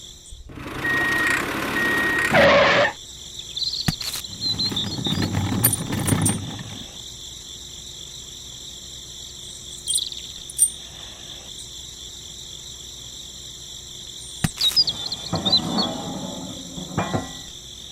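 Insects trilling steadily at a high pitch. About a second in there is a loud rushing noise lasting about two seconds, and a few sharp clicks follow later.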